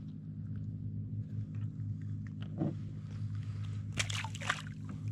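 A small fish thrown back into calm sea water, landing with a short splash about four seconds in, over a steady low hum and some handling knocks.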